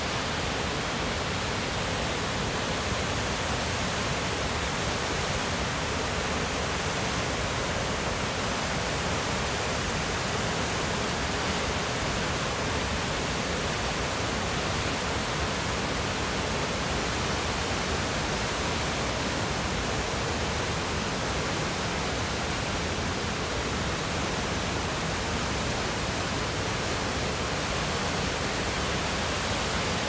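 Godafoss waterfall: a broad curtain of river water plunging over a horseshoe-shaped cliff into a pool, a steady, unbroken rush.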